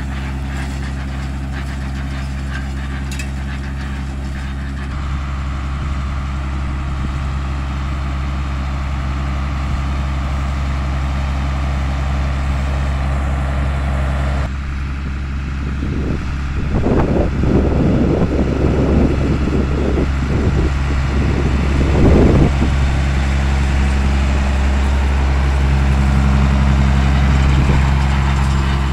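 Fendt tractor's diesel engine running steadily while pulling a rotary hay rake through cut hay. About halfway through, a rough, noisy stretch rises and falls for several seconds over the engine.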